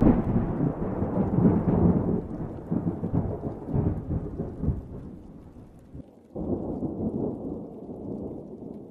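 Thunder sound effect: a sudden crash of rumbling thunder that fades away over about six seconds, then a second rumbling burst that comes in suddenly about six and a half seconds in.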